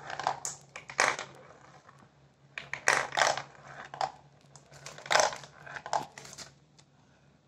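Glass marbles rolling and clattering through a plastic marble-run track, clicking against the tubes and funnel bowls in irregular bursts of clacks. The clacks die away near the end as the marbles come to rest in the last bowl.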